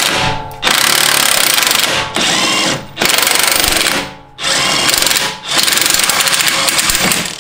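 Cordless impact wrench hammering on the nut of a rear lower shock mount bolt, in repeated bursts of about a second each with short pauses between, as the nut is broken loose and spun off.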